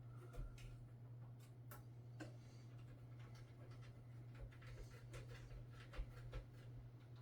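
Faint, scattered small clicks and taps of hands handling parts and screws inside a desktop PC case, over a steady low hum.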